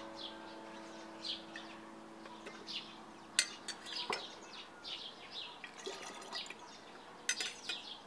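Poppy sherbet being poured into a glass bottle, with small birds chirping repeatedly and a couple of sharp clicks, about three and seven seconds in.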